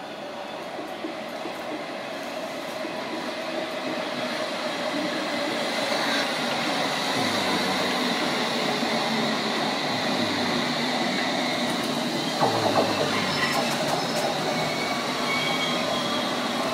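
London Underground S Stock train running into the station, getting louder over the first several seconds as it comes alongside, with a steady motor whine over the rail noise. In the last few seconds a second S Stock train approaches with wheels squealing and a whine that slowly falls in pitch as it slows.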